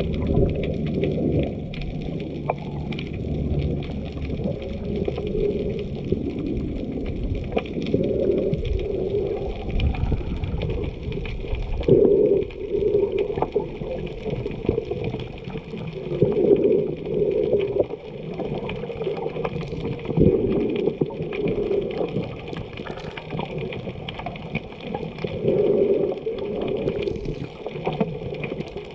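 Muffled water sloshing and gurgling around a snorkeler's camera, partly underwater, with louder surges every few seconds.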